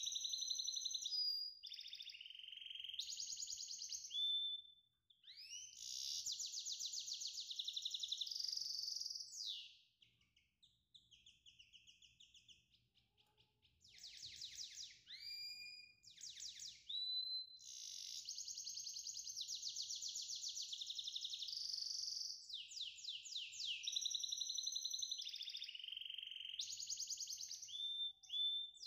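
A songbird singing long runs of rapid trills, sliding notes and held whistles, with a short break about ten seconds in.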